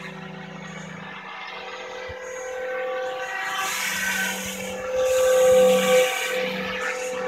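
Scale RC Eurocopter EC145 model helicopter flying, its electric drive and rotors giving a steady whine with many overtones. It grows louder about five seconds in as it comes closer.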